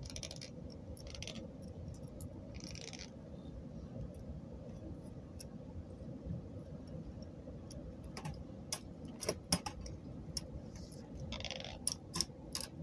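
Small hard objects clicking and clinking as they are handled, with short rustles near the start and near the end, over a steady low background rumble. The sharp clicks come mostly in the second half.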